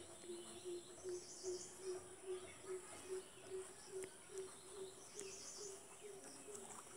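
Faint bird calls: a low note repeated steadily about two and a half times a second, with a few thin high chirps over it.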